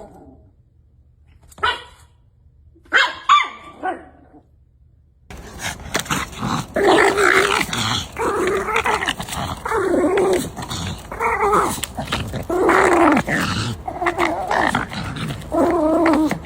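A dog vocalizing: a few short barks in the first few seconds, then, from about five seconds in, a steady run of growling barks about one a second.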